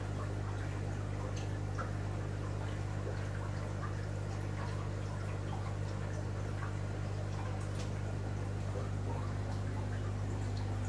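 Aquarium pump running with a steady low hum, under faint trickling water and scattered small ticks.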